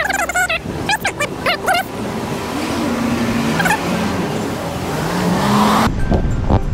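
Street traffic: a car passing close by, its noise building for a few seconds and then cutting off suddenly near the end. Brief voices in the first couple of seconds.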